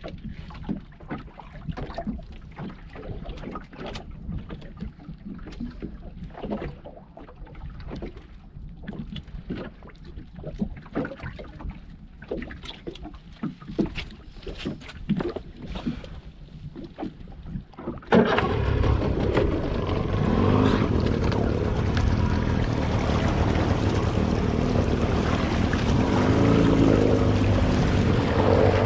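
Scattered knocks and rattles of crab pots and gear being handled on a small boat, over the lapping of water. About two-thirds of the way through, this cuts suddenly to the loud steady run of the boat's outboard motor under way, with wind and rushing water.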